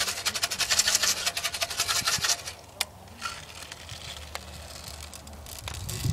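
A fast, dense rattle of small clicks for about two and a half seconds, then a few scattered single clicks.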